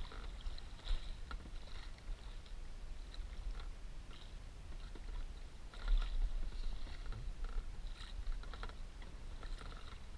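Sea water slapping and splashing against a small outrigger boat's hull and float in an irregular run of short splashes, over a steady low wind rumble on the microphone, with a heavier slap about six seconds in.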